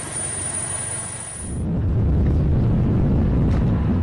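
A steady hiss, then about one and a half seconds in a louder, deep rumble of wind and boat noise picked up by a camera aboard a small boat on open water.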